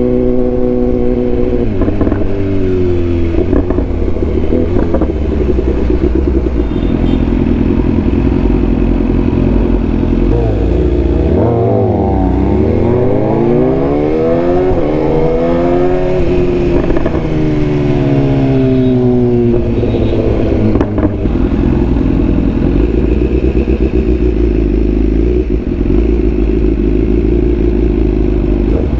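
BMW S1000R's inline-four engine running under way. Its pitch drops, dips to a low point about twelve seconds in and climbs again as the bike slows and accelerates, falls once more, then settles into a low, steady note.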